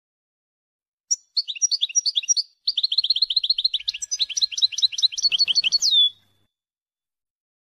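European goldfinch song in the Wadania style: fast runs of short, downward-sweeping chirps starting about a second in, with a brief break partway through. The phrase ends with one long falling note.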